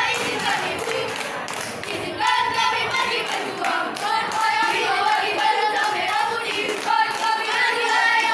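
A group of children's voices chanting and singing a scout yel-yel cheer in unison. There is a short lull about two seconds in before the chant picks up again.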